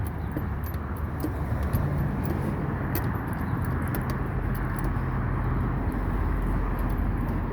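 A steady low rumble with a low hum and a few faint clicks.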